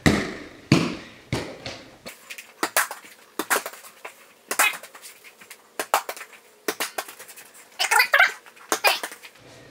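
Mini basketball thumping against a small wall-mounted hoop and bouncing on the floor three times, then a run of light knocks and clicks, busiest near the end.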